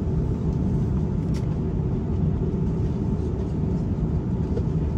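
Cabin noise of an Airbus A350-941 taxiing after landing: a steady low rumble from its Rolls-Royce Trent XWB engines at idle, with a faint steady tone above it.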